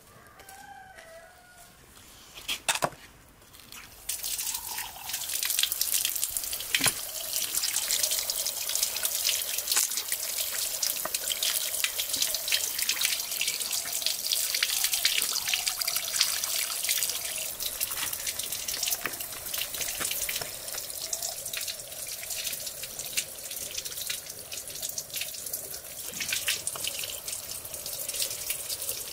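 Water running from an outdoor tap and splashing into a concrete sink as raw lamb necks are rinsed under it by hand. The water starts about four seconds in and runs steadily with many small splashes.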